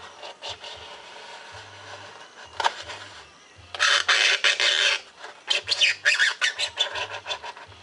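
X-Acto hobby knife cutting through a foam sheet with scratchy strokes. One longer, louder cut comes around the middle, followed by a run of short quick strokes near the end.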